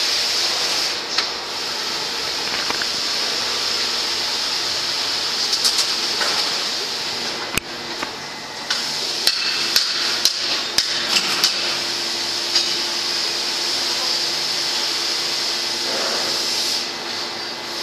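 Steady machine noise with a high hiss from a rotor stirring molten aluminium in a steel pot. A run of sharp metallic clanks and taps comes between about eight and thirteen seconds in.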